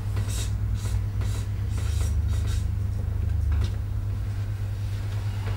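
Felt-tip marker squeaking and scratching on flip-chart paper in a quick run of short strokes while writing, stopping about three seconds in, over a steady low background hum.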